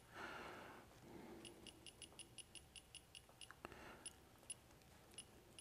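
Faint, short key-press ticks from typing on the ArcDroid CNC plasma cutter's handheld touchscreen controller: a quick run of about ten at roughly five a second, then a few spaced taps.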